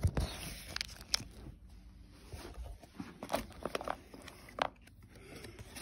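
Basketball trading cards being handled in a cardboard box: irregular soft clicks and rustles as the cards slide and tap against one another and the box.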